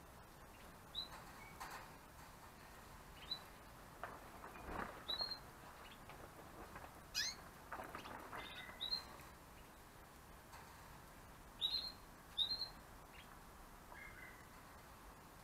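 Caged Gloster canaries giving short, high chirps, about a dozen scattered irregularly, a couple in quick pairs. Soft rustles and clicks come between them, mostly in the middle.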